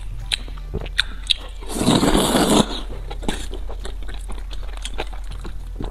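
Close-miked eating of wide flat starch noodles: one loud slurp about two seconds in, lasting under a second, with wet chewing and mouth clicks before and after it.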